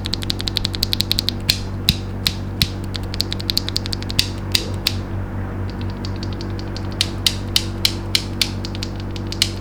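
Mechanical keyboard switches being pressed for a sound test: sharp high-pitched clacks, a quick run of them at first, then slower single presses, over quiet background music.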